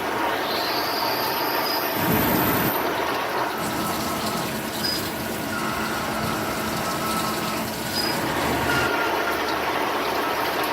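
Hardinge Conquest ST-20 CNC lathe at work turning steel: a steady rushing hiss with faint high-pitched whines that come and go.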